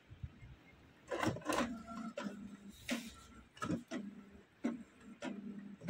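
Canon Pixma G-series ink-tank printer initialising as it powers up into service mode. From about a second in, a steady motor hum is broken by a string of sharp mechanical clicks at uneven intervals.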